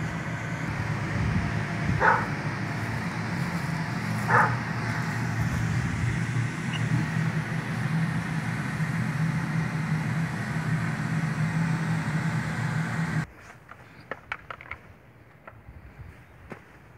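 Electric blower of an inflatable bounce house running with a steady low hum, and a dog barks twice briefly in the first few seconds. About thirteen seconds in the hum cuts off, leaving faint clicks and rattles.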